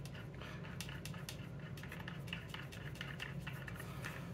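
Light irregular clicks and ticks of small plastic parts being handled as a 10-32 screw is threaded into a nut by hand, over a steady low hum.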